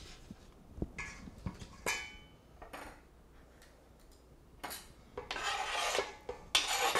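Chef's knife scraping chopped cabbage off a cutting board into a stainless steel mixing bowl, with the back of the blade: a rasping scrape in the second half. Before it there are a few light knocks and a brief metallic clink about two seconds in.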